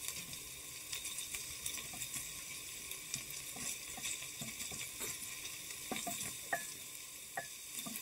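Chicken liver, onion and garlic sizzling in oil in a pot, stirred with a silicone spatula that scrapes and taps against the pot now and then, most often near the end.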